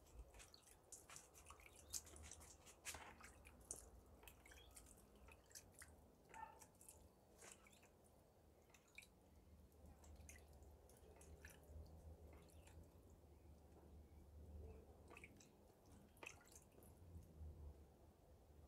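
Faint water drips and small splashes as water is sprinkled by hand from a bowl onto potted succulents, heard as scattered irregular ticks over a low background rumble.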